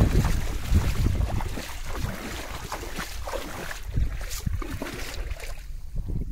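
Bare feet splashing as they wade through shallow river water, with wind rumbling on the microphone.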